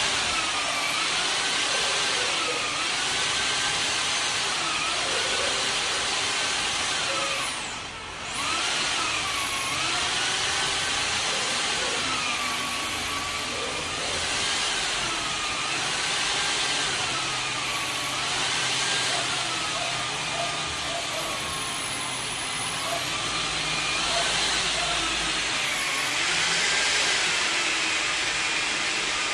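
Cordless drill spinning a drum-type spring drain snake as its cable is fed into a clogged kitchen sink drain. The motor whine rises and falls over and over, and stops briefly about eight seconds in.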